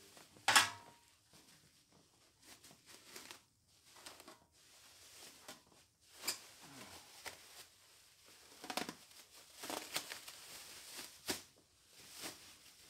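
Clear plastic wrap crinkling and rustling in irregular bursts as it is handled on polished steel armour plates, with one sharp knock about half a second in.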